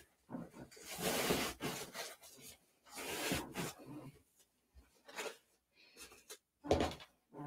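Objects being handled and shifted on a tabletop: rubbing and rustling in uneven bursts, with a sharp knock near the end.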